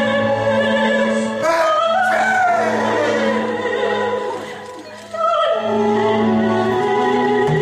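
Opera music: a singing voice with vibrato over orchestral accompaniment. It dips in level about four to five seconds in, then resumes.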